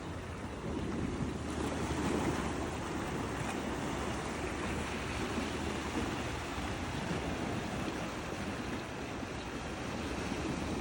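Sea surf washing onto a beach, a steady rushing noise that swells a little about two seconds in.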